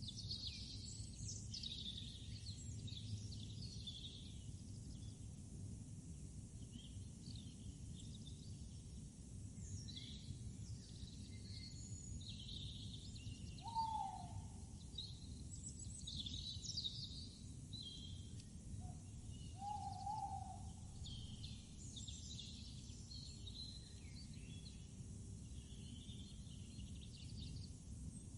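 Wild birds chirping and twittering over a steady low background rumble, with a short low hooting call about halfway through and another a few seconds later, the first falling in pitch.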